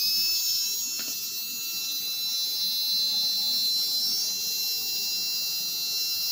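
Small 6-volt DC motor with a brass drill chuck spinning freely at full speed, unloaded, with a steady high whine.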